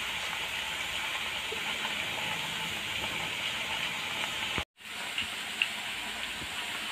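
Thin potato slices deep-frying in hot oil, a steady sizzling hiss of vigorous bubbling. This is the early stage of frying, before the bubbling dies down. The sound cuts out for a moment about two-thirds of the way through.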